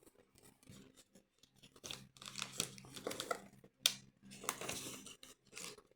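Faint rustling and crinkling as leftover LEGO pieces and their packaging are handled, in scattered bursts, with one sharp click about four seconds in.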